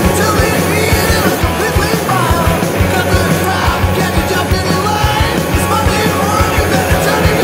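Rock backing music with a steady drum beat.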